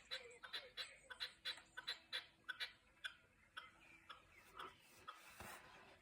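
An unidentified bird's rapid series of sharp clicks, about four a second, slowing and fading after about three seconds, with a short rustling burst near the end. This is the weird sound that came from the roof aerial.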